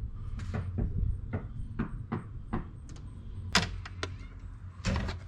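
A string of irregular clicks and knocks, like things being handled and set down while topping up engine oil, the sharpest about three and a half seconds in, over a steady low hum.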